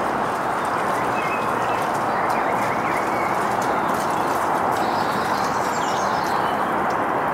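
Steady, even rushing outdoor noise by open water, with a few faint bird chirps about a second in and again around five seconds.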